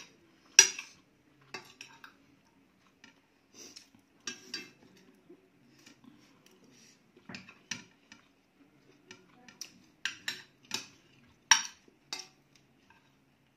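Metal spoons scraping and clinking against ceramic plates as food is scooped up: scattered sharp clinks, the loudest under a second in and near the end.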